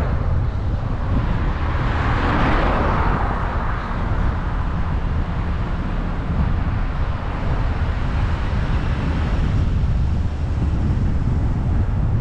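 Car driving on a road: a steady low road and engine rumble, with a rushing hiss that swells and fades about two to three seconds in.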